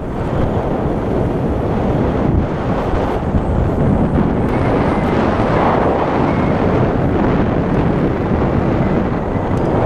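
Strong wind buffeting the microphone in a steady, loud rumble.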